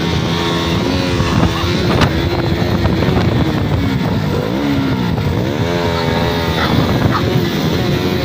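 Motorcycle engine running under way, its pitch rising and falling again and again as the throttle opens and closes.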